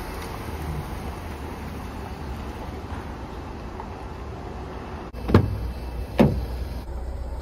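A steady low rumble, then two sharp thumps a little under a second apart near the end.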